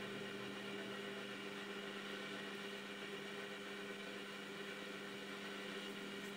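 A pot of turmeric and ginger boiling on a portable gas stove: a steady hiss with an even low hum under it.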